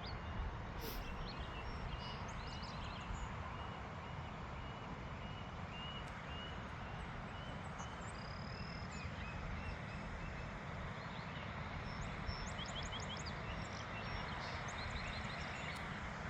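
Small birds singing outdoors: a short chirp repeated about twice a second through the first half, and quick high trills later on, over a steady background hiss and low rumble.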